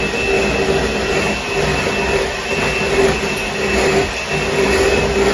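Electric hand mixer running at a steady speed, its beaters whipping eggs and sugar in a bowl: a constant motor whine over a whirring rush.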